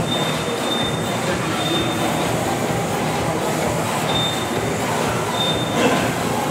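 A pack of Kyosho Mini-Z 1:28 electric RC cars racing on a mat track: a steady whir of small electric motors and tyres. Short high beeps sound several times over it.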